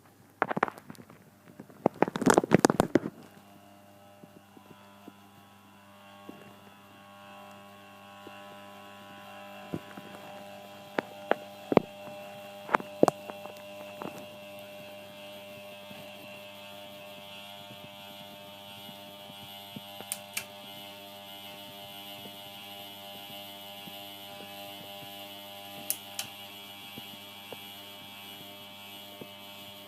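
Ceiling fan motor buzzing with a steady electrical drone and mains hum, settling in after a brief burst of noise at the start and dotted with several sharp clicks. The owner reports this loud buzzing comes with the fan no longer running on its three speeds.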